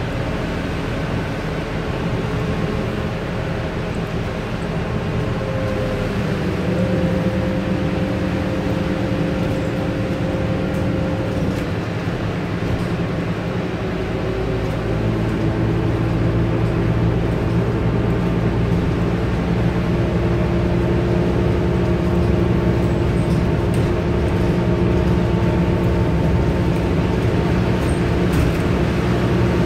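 Scania N230UD double-decker bus engine and drivetrain heard from the upper deck while under way: a steady drone. The engine note rises and grows louder about six seconds in and again about fifteen seconds in as the bus picks up speed.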